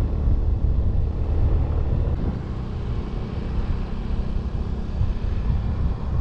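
Wind buffeting the microphone of a camera on a moving motorcycle, over the motorcycle's engine running steadily at road speed; the noise is loud, steady and heavy in the low end.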